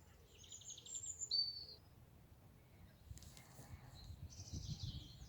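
Small songbirds singing: short, high trilling phrases, one about a second in and more around four to five seconds in, over a faint low rumble.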